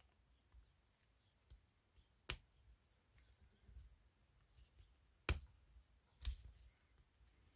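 Small sharp plastic clicks and ticks as a black plastic ring is worked into place on a Canon EF 70-200mm f/4 lens body. One louder click comes about two seconds in and two more near the end, with near silence between.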